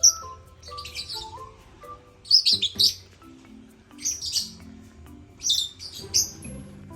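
African lovebirds chirping in short bursts of sharp, high chirps every second or two, over soft background music of held notes.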